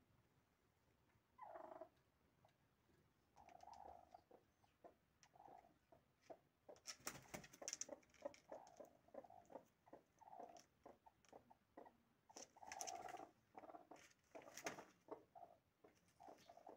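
Broody hens clucking softly in short, repeated low calls: one call about a second and a half in, then a busy run of them from about three and a half seconds on. Scratchy rustling of the nest litter mixes in as a second hen climbs into the nest crate beside the one sitting on eggs.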